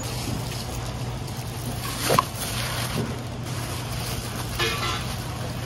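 Street background noise with passing traffic and a steady low hum, and a brief sharp clatter about two seconds in.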